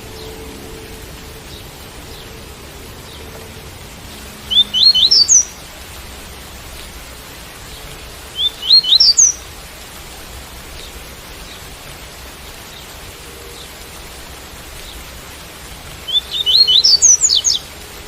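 Double-collared seedeater (coleiro) singing the tui-tui song three times. Each phrase is a quick run of high, rising notes, the last one the longest. Steady rain hiss runs underneath.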